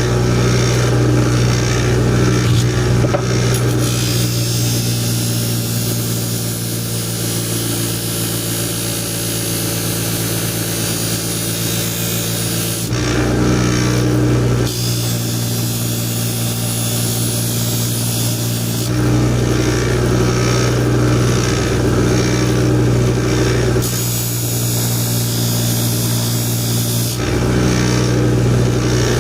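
High-speed buffing wheel motor running with a steady hum, while a serrated bread knife's edge is pressed against the wheel in several passes, each giving a few seconds of rasping hiss over the hum. The buffing smooths the serrations back out rather than sharpening each tooth.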